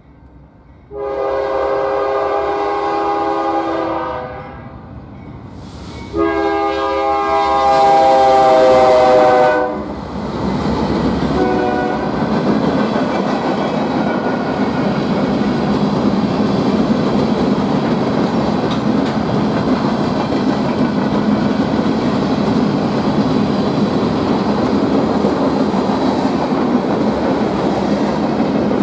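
Nathan K3LA three-chime air horn on a BNSF freight locomotive sounding two blasts, the second longer and louder and dropping slightly in pitch as the locomotive passes. Then the freight train rolls by with a steady rumble of wheels on rail.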